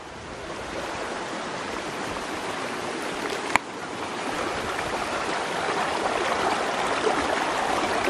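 Steady rush of flowing water, growing louder over the first few seconds, with a single sharp click about three and a half seconds in.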